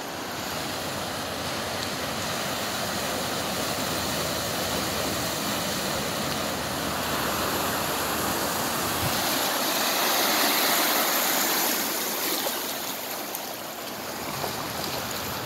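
Steady rush of churning floodwater, swelling about seven seconds in and easing off near the end.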